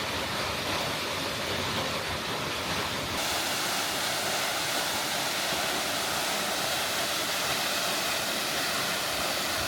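Waterfall rushing steadily, its hiss growing brighter about three seconds in.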